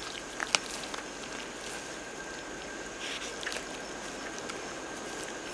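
Tasmanian devils scuffling and feeding at a carcass: soft rustling and tearing in the undergrowth, with two sharp clicks about half a second in.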